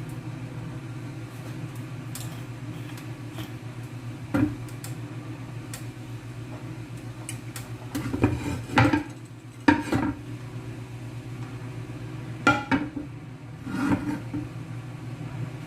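Kitchen utensils and cookware clattering and knocking a handful of times over a steady low hum, as the marinated chicken is handled and made ready for pan-frying.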